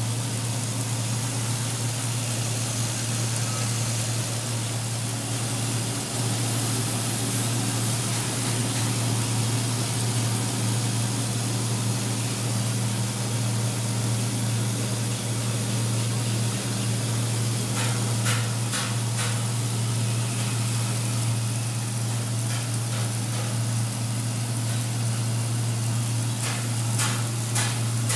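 Dry coffee huller running steadily: a constant low motor hum under an even hiss of beans and husk moving through the hulling drum. A few sharp clicks sound about two-thirds of the way through, and a quick run of them near the end.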